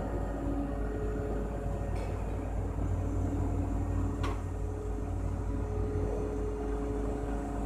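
Truck-mounted knuckle-boom crane running as it swings a load of concrete blocks: a steady low engine rumble with a faint steady whine, and one sharp click about four seconds in.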